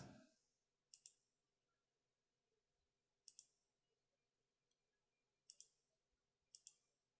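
Computer mouse buttons clicking faintly four times, each click a quick pair of snaps, spread a second or two apart while menus and a file dialog are worked.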